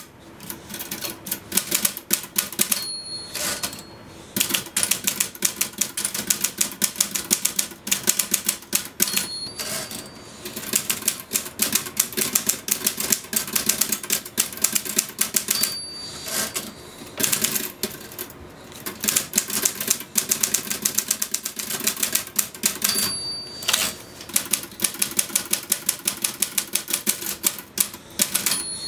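Typewriter typed fast and without letup, keys clacking in a dense, uneven stream. About every six or seven seconds the carriage bell dings near the end of a line and the typing breaks off briefly for the return before the keys start again.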